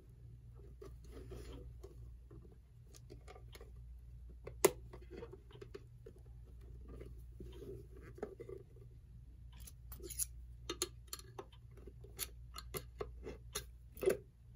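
Small clicks, taps and scrapes of hand-handling as an electric clock's movement is worked loose and slid out of its case, with a sharp knock about four and a half seconds in and a quick run of clicks near the end.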